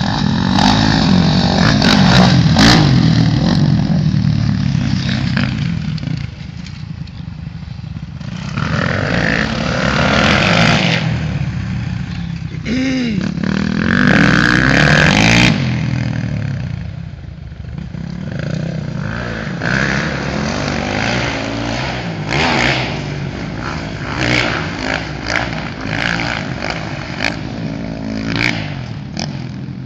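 Several motocross dirt bikes running laps, their engine notes rising and falling as the riders work the throttle. The sound is loudest as bikes pass close in the first few seconds and again around 14 to 15 seconds in.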